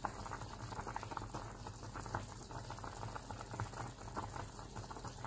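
Pot of tom yum fish soup at a rolling boil: steady fast bubbling and popping over a low, steady hum.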